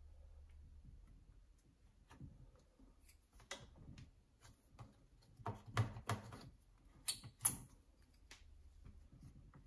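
Light clicks and taps of a paintbrush and a plastic watercolour palette against the paint pans and a glass desktop, scattered and irregular, with a cluster of knocks a bit past halfway and two sharper clicks about seven seconds in.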